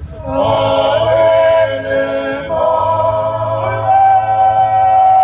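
Group singing in long held notes over a low backing, the song for a Māori poi dance; a short break about halfway through, then one long held note to the end.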